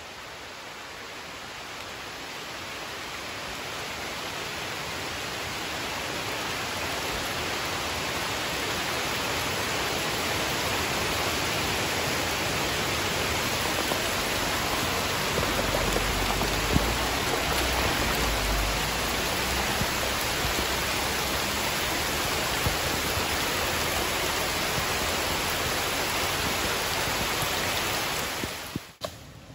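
Heavy rain pouring down onto a flooded dirt road and the surrounding leaves. It builds from a lighter shower into a steady downpour over the first ten seconds or so, then cuts off sharply just before the end.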